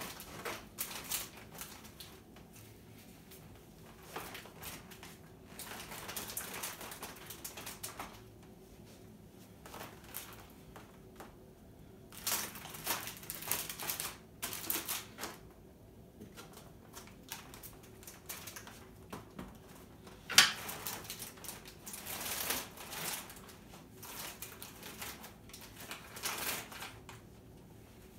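Irregular rustling and crinkling of packaged groceries and the fabric of a Brompton Borough front bag as the groceries are handled, packed and lifted by the shoulder strap. A single sharp click stands out about two-thirds of the way through.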